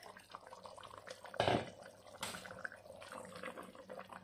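Rice poured from a stainless steel bowl into a pot of hot tomato broth: a light patter of grains and small drips and splashes, with one louder splash about a second and a half in.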